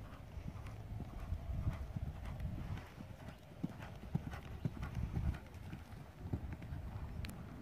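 Hoofbeats of a horse cantering on a sand arena surface: a run of dull low thuds, with the horse going over a small cross-pole jump late on.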